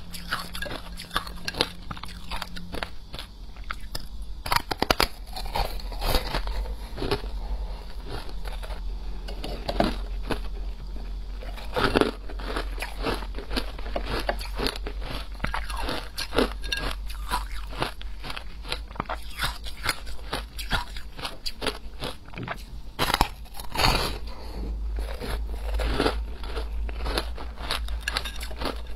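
Frozen blocks of shaved ice being bitten and chewed close up: a dense run of irregular, crackly crunches, with a few louder bites now and then.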